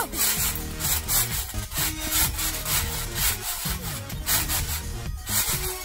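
Trampoline springs creaking and the mat bouncing under two jumpers, in a steady rhythm of about two bounces a second.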